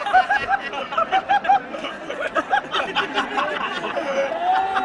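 Several people close by laughing in quick bursts and talking over one another.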